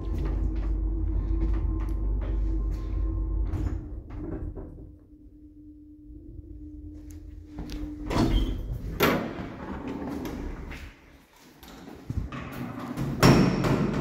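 A 1972 passenger lift running with a steady motor hum that fades out about four to five seconds in as the car stops. Then come loud clunks and bangs of the lift doors being opened and shut, the loudest near the end.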